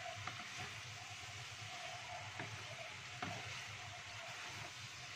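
Vegetables and meatball slices sizzling in a wok as a wooden spatula stirs them, with a few light knocks of the spatula against the pan.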